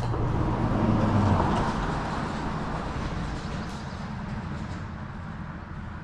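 A vehicle driving over the road bridge overhead: a low rumble that swells about a second in, then slowly fades as it passes.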